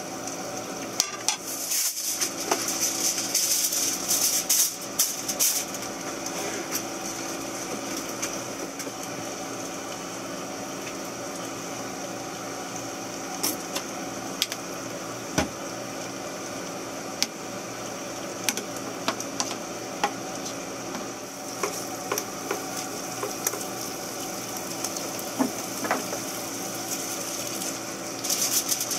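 Steak and vegetables sizzling in a frying pan, with the clicks and scrapes of a spatula against the pan. The sizzle is loudest over the first few seconds and again near the end, over a steady low hum.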